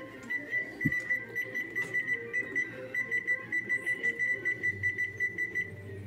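Electric range's control-panel keypad beeping in a fast, even string of short high beeps, about four a second, as the oven timer is set to 40 minutes; the beeping stops near the end. A single dull thump about a second in.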